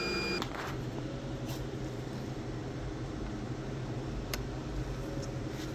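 A steady low hum with a few short clicks, one sharp click about four seconds in.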